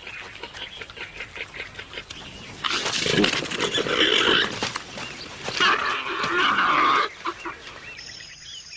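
Warthogs squealing in two loud bursts a few seconds apart, the sound of a male warthog driving off an intruding male.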